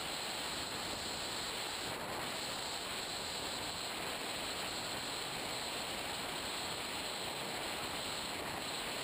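Steady rushing of air over the onboard camera of an RC plane in flight, an even hiss with no clear motor tone.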